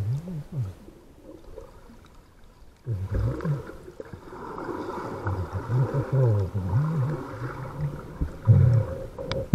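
A man's voice humming a tune without words, low-pitched and swooping up and down in glides, with a pause of about two seconds near the start.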